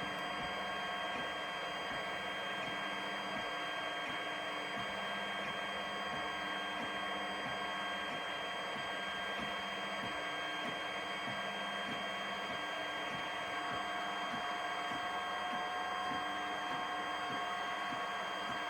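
3D printer running a print: a steady whine at several fixed pitches over a constant hiss, with faint, irregular soft ticks.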